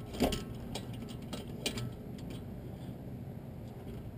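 Steel tools clinking: a handful of sharp metallic clicks, the first the loudest, as a four-way lug wrench turns a reversed lug nut to draw a wheel stud into the hub against a braced wrench.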